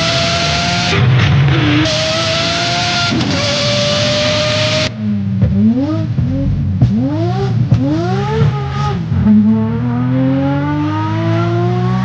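High-revving racing engine pulling hard with a steady climb in pitch, changing up gear twice. After an abrupt change in the sound it is blipped through a run of quick rising revs, then accelerates again in one long rising pull near the end.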